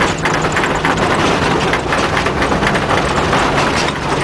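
Off-road vehicle driving over a rough gravel and rock track, heard from inside the cab. There is a steady noise of tyres and wind with constant irregular rattling over a low engine hum.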